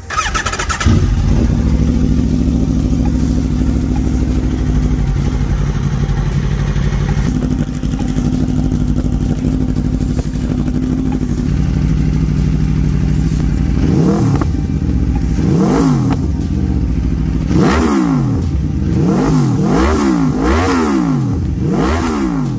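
2022 Aprilia RSV4 1100 Factory's V4 engine breathing through an SC Project SC1-R exhaust: it fires up about a second in and idles steadily. From about 14 s on it is revved in sharp blips, each pitch rising and falling, two spaced apart and then about five in quick succession near the end.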